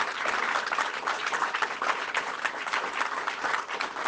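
A crowd applauding: many hands clapping in a dense, steady clatter.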